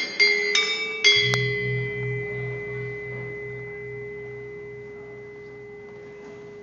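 Balinese gamelan metallophones strike their last few notes, then the piece's closing stroke lands about a second in with a large gong. The gong's low hum pulses about four times a second and the bronze tones ring on, fading slowly.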